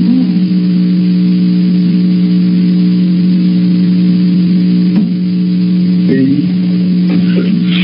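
Loud, steady electrical hum with a few fainter tones above it and a layer of hiss, on a surveillance camera's audio track.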